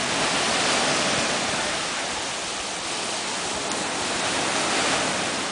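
Small waves breaking and washing up a sandy beach: a steady rushing hiss that swells slightly about half a second in and again near the end.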